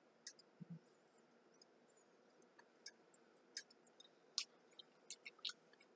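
Quiet, scattered sharp clicks and small crunches of Kool-Aid-brined pickles being bitten and chewed, with near silence between them.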